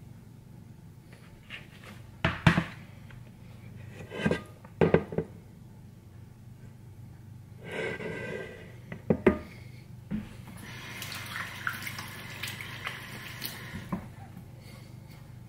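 Seasoned raw chicken pieces being handled into a plastic air fryer basket, with a handful of sharp knocks as the bowl and basket are bumped. Near the end a stream of water runs for about three seconds.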